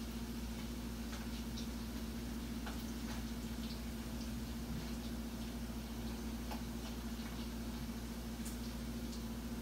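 Steady low hum, with faint scattered light taps and clicks as a cat bats a small toy across a tiled floor.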